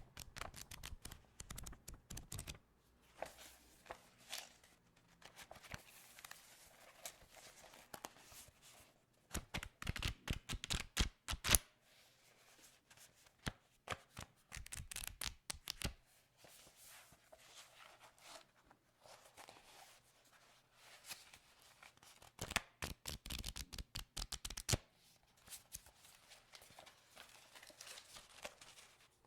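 Standard white printer paper being handled, crinkled and rustled in irregular bursts of crackling, with louder spells about a third of the way in, around halfway and past three-quarters.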